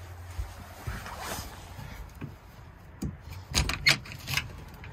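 Wooden chicken coop door being handled and opened: a soft scuff about a second in, then a quick run of sharp knocks and clacks from the latch and door frame near the end.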